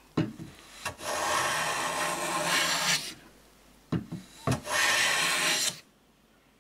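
No. 5.5 bench plane with a cambered blade taking two long strokes along the edge of a board, each a steady hiss of a full-width shaving being cut. Short knocks come before each stroke.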